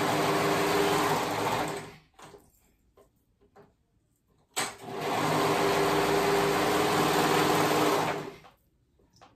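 Serger (overlocker) running at a steady speed, finishing the raw edges of fabric. It stops about two seconds in, starts again sharply about halfway through, runs for nearly four seconds and stops.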